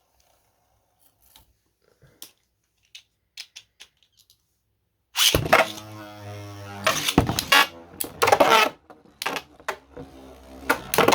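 A few faint handling clicks, then about five seconds in two 3D-printed Beyblade spinning tops are launched into a plastic stadium. Their spinning makes a steady whir, and they collide again and again in sharp clacking hits.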